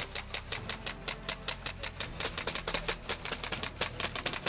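Airsoft rifles firing in a fast, steady run of sharp clicks, about seven a second.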